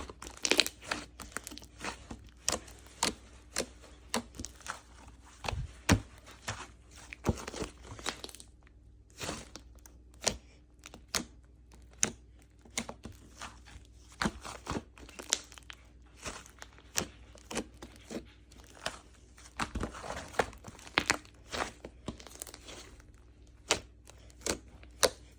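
Slime being squished and worked by hand, giving irregular sharp pops and crackles, one or two a second with occasional quick clusters, over a faint steady hum.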